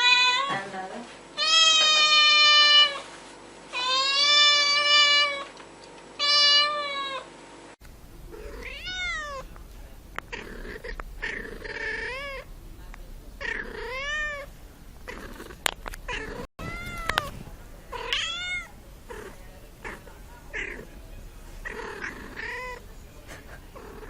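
Domestic cats meowing: about four long, drawn-out meows in the first third, then a run of short meows, rising and falling, roughly one a second.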